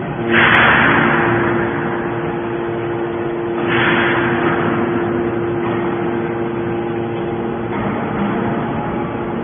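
Hydraulic scrap metal baler press running: a steady hum from its power unit, with two loud noisy surges, one just after the start and another about four seconds in, each fading away over a second or two.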